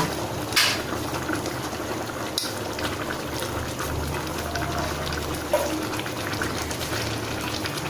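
Crab masala gravy bubbling steadily at the boil in a cooking pot, with three light knocks spread through it.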